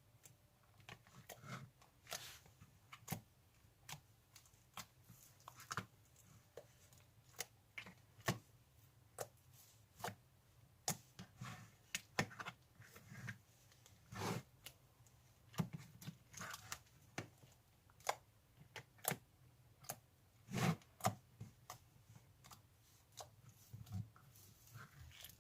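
Slime being squeezed and stretched by hand, giving off irregular sticky clicks and pops, roughly one or two a second.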